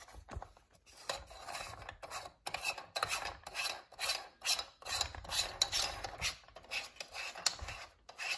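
Plastic packaging bag crinkling and rustling in irregular scrapes, as a hand fits a lampshade's ring onto the lamp's socket.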